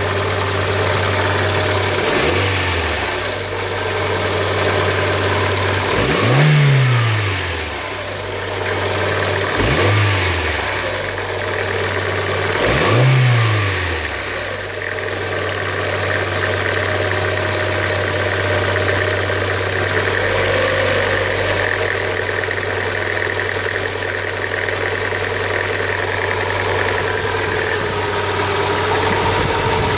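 Hyundai Coupe 2.0's four-cylinder engine idling, revved briefly four times in the first half and then left to idle steadily. The owner hears a strange noise from this engine.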